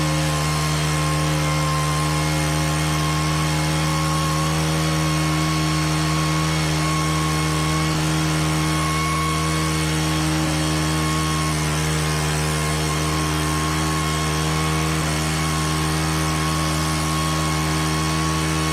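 Stihl KM 131R with its leaf-blower attachment running at a steady high speed, its small four-stroke 4-MIX engine holding one unchanging pitch under the rush of air from the blower.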